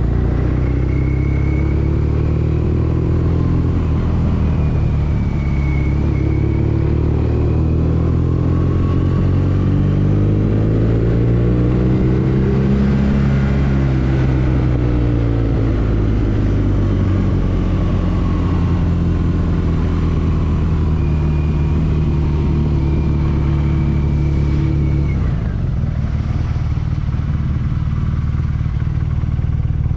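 A 2014 BMW R nineT's boxer twin engine running as the bike is ridden. Its note climbs to a peak about halfway through, then falls away, and drops to a lower, slightly quieter note a few seconds before the end.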